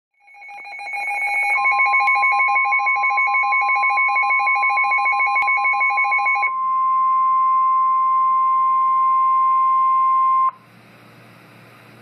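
A weather radio sounding a warning alert. The receiver's own rapid, pulsing two-pitch alarm beep plays for about six seconds over the steady 1050 Hz NOAA Weather Radio warning tone. The tone carries on alone and cuts off sharply about ten and a half seconds in, leaving faint radio hiss.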